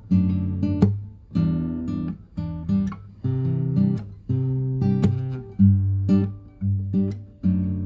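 Background music: acoustic guitar strummed in chords, each chord struck and left to ring about once or twice a second.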